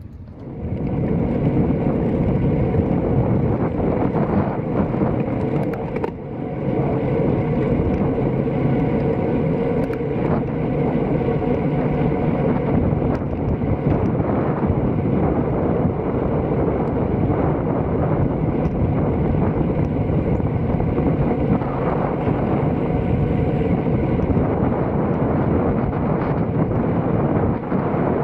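Wind rushing over the microphone of a camera riding along on a moving road bike, starting suddenly about half a second in and then holding steady.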